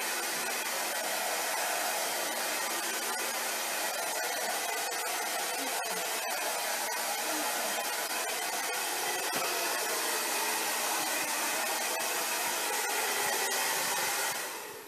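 Hand-held hair dryer blowing steadily, then switched off and dying away just before the end.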